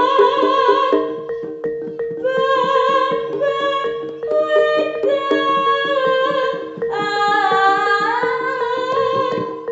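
Jaranan gamelan accompaniment: a high voice sings long, held, gliding phrases in three stretches over a constant drone tone and quick, steady drum strokes.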